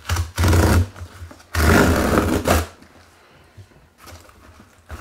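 Packing tape being torn off a cardboard shipping box by hand, in two loud tears about a second long each, the second starting about a second and a half in.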